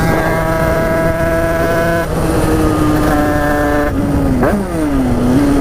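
Tuned two-stroke motorcycle engine running at high revs under way. Its pitch steps down about two seconds in, briefly rises and falls again near four and a half seconds, then holds steady.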